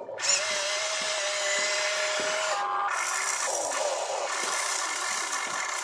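Motor whine of a toy RC excavator, its electric motors and gearboxes whirring as the boom lifts a bucket of dirt and the cab swings. It starts about a third of a second in at a steady pitch, which shifts about halfway through as the movement changes.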